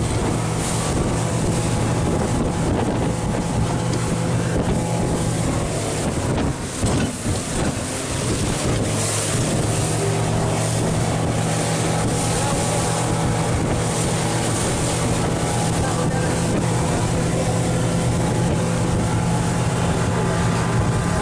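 Small fishing boat's motor running steadily while under way, with wind buffeting the microphone and water rushing past the hull. The engine note goes briefly unsteady about seven seconds in.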